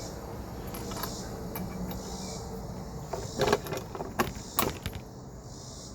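Several sharp metallic clicks and clacks from working a Mauser 98 rifle action and striking the primer of an old 1936 German primed case. There is no proper pop: the decades-old primer fails and makes little sound.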